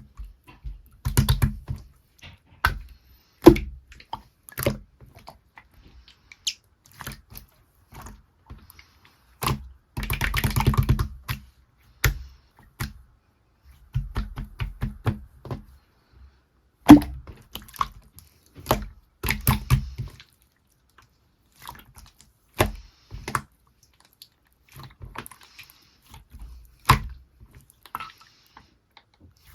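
Orange clear slime being pressed, squished and poked by hand, giving sharp sticky pops and clicks, some single and some in quick runs.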